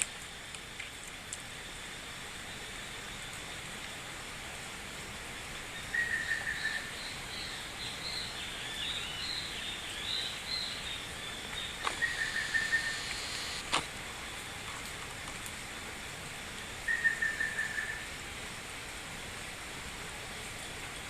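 Birds calling over a steady hiss of water noise. A short trilled call comes three times, about five seconds apart, and a run of higher chirps sits in the middle.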